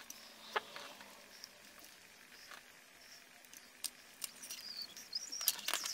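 Small clicks, ticks and rustles of thin hook-up wires and small plastic parts being handled and pulled apart by hand, growing busier in the second half with a faint wavering high squeak.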